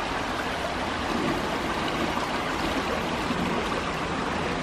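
Steady rushing of the Susquehanna River's current.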